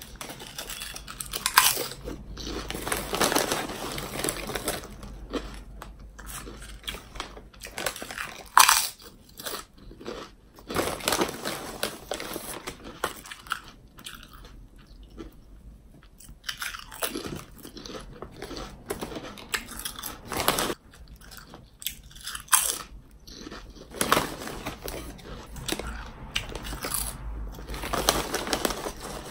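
Potato chips being bitten and chewed: several sharp, loud crunches at irregular intervals, with softer chewing between them.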